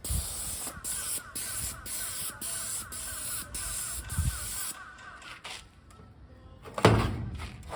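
Paint sprayer spraying a garage door with a steady hiss, briefly broken several times, stopping a little under five seconds in. About seven seconds in, a single loud thump.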